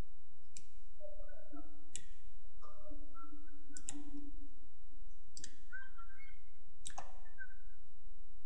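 Computer mouse clicks: about six sharp single clicks, spaced a second or more apart with one quick double click near the middle, over a low steady hum.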